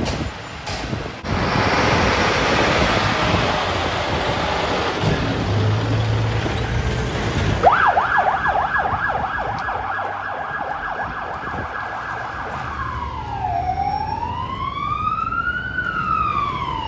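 Scania fire truck pulling out of the station with its engine running, then its electronic siren switches on about halfway through: a fast repeating yelp for about five seconds, changing to a slow rising and falling wail.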